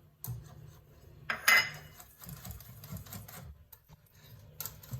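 Kitchen handling sounds as baking powder sachets are added to cake batter: a few light clicks and knocks against the bowl, and one short, louder rustle about a second and a half in.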